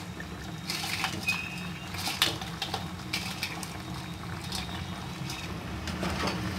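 Fried chicken pieces tipped from a steel bowl into a pan of simmering gravy, with scattered taps and scrapes of a spatula against the bowl over a steady low hum. Stirring in the pan begins near the end.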